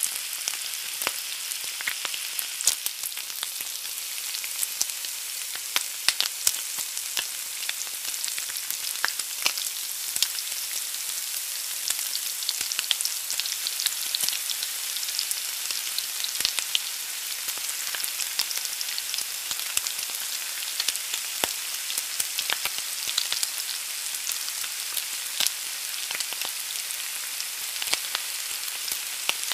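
An egg frying in a pan: a steady sizzle with frequent small crackles and pops throughout.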